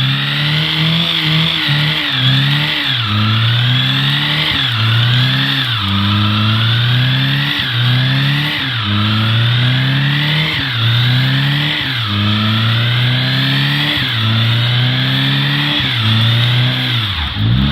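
2007 Honda Civic four-cylinder engine held at high revs during a burnout to wear off bald tyres. Its pitch climbs and then falls back sharply over and over, about once every second and a bit. Near the end the revs dip deeply, then steady.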